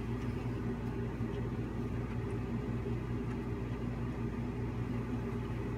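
Steady low mechanical hum with a few constant low tones and no change.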